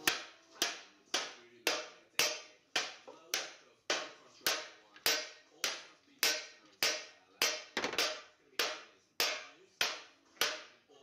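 Hand hammer beating sheet metal (tin-bashing), a steady run of sharp ringing blows at about two a second, each dying away before the next, with a quick double blow a little before 8 seconds in.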